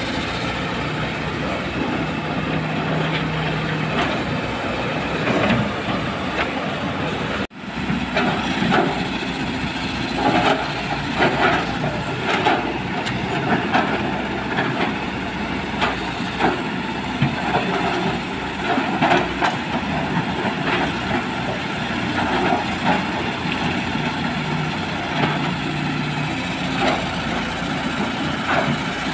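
Kobelco hydraulic excavator's diesel engine running as it loads a dump truck, with irregular clanks and rattles of soil and stones dropping from the bucket into the steel truck bed.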